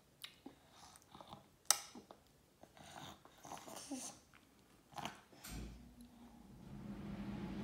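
Quiet taps and clicks of a baby's fingers and beans on a plastic high-chair tray, with soft mouth sounds as he eats, and one sharp click about two seconds in. A steady low hum starts about two thirds of the way through and slowly grows.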